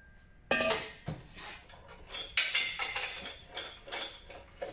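Hollow mild-steel square tube clanking against the steel vise of an Evolution Rage 2 chop saw as it is set in and clamped, with the saw not running: one sharp clank about half a second in, then a run of lighter metallic clinks and rattles.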